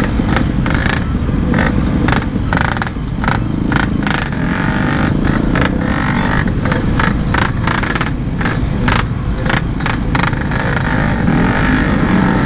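Yamaha RX-King's two-stroke single-cylinder engine running under way, heard through its aftermarket Packing Power exhaust as the bike rides along.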